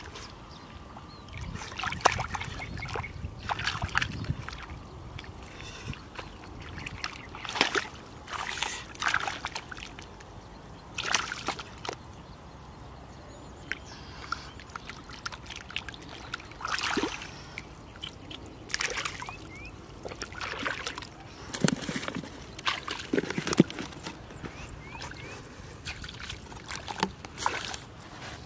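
Hands splashing and sloshing through shallow muddy water and mud in short irregular bursts, every second or two, as the mud is groped through by hand.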